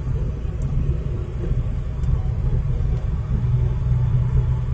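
Car driving at highway speed, heard from inside the cabin: a steady low rumble of engine and road noise.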